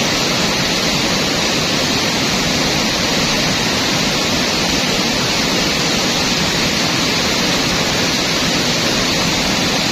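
Rushing river water: a steady, loud rush of noise that does not change.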